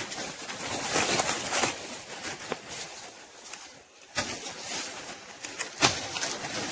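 Dry banana leaves rustling and crackling with footsteps on leaf litter as someone pushes through a banana thicket, coming and going unevenly, with sharper crackles about four seconds in and again near six seconds.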